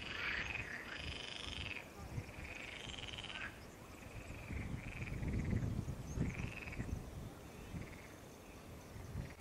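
Frogs croaking in a chorus of short, pulsed calls, each about half a second to a second long, coming less often after about six seconds in, over a low rumble.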